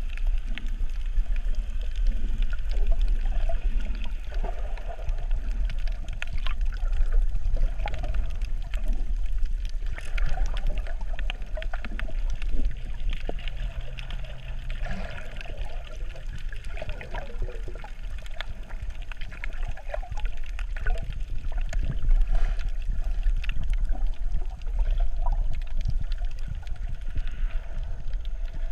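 Water noise heard by a camera underwater: sloshing and bubbling over a steady low rumble, with scattered small clicks.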